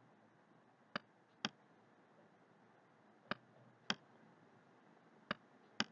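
Faint clicks of a computer mouse button, in three pairs about half a second apart, as each stroke of handwriting is drawn on screen: a press to start the stroke and a release to end it.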